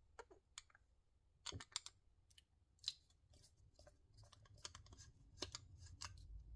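Small screwdriver turning out the screws under a clear acrylic display base: faint, irregular clicks and scrapes of the metal tip and screws against the plastic.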